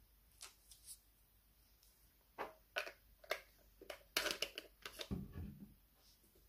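Small clicks and taps from handling a skincare bottle and cotton pads, with a soft low thump about five seconds in.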